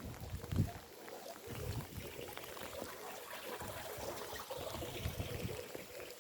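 Steady rain with water trickling and pouring, over low dull thuds of footsteps on wet ground.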